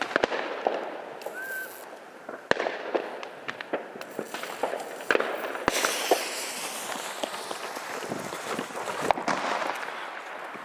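A lighter clicking at a ground firework's fuse, a few sharp knocks, then a steady hiss as the lit firework begins spewing smoke.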